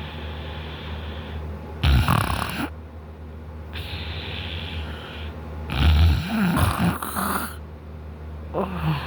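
A man in deep sleep, lying on his back with his mouth open, snoring. There are two loud snores about two and six seconds in and a third starting near the end, with breathy airflow between them. A steady low hum runs underneath.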